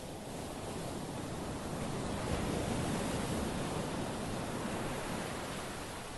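Ocean surf: a wave rushing up the shore, swelling to a peak about three seconds in and then dying away.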